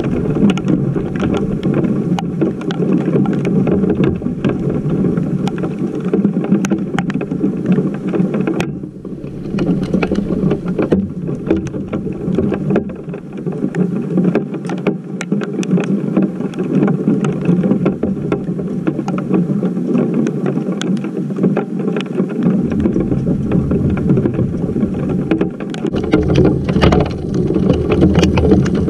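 Heavy rain and hail pelting down as a dense, unbroken patter, with many sharp ticks of drops and stones striking close to the GoPro.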